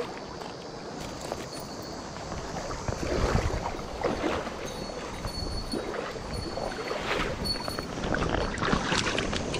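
Irregular splashing and sloshing of shallow river water as a hooked rainbow trout thrashes near the surface while it is brought to the landing net, with the strongest splashes about three, seven and nine seconds in.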